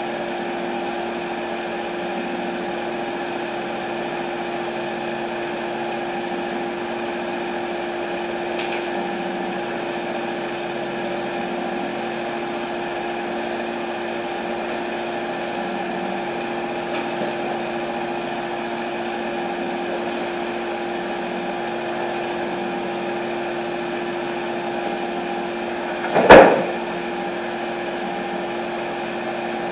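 TimberKing 1220 band sawmill's engine running at a steady speed. Near the end there is a single loud wooden thump as a sawn hemlock slab comes down.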